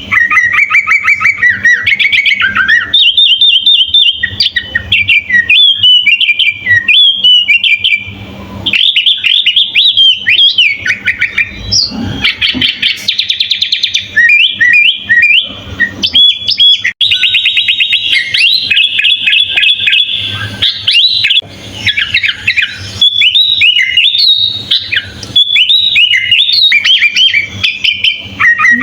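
Sooty-headed bulbul (kutilang) singing a fast, continuous run of varied chirps, whistles and trills, with a few short breaks.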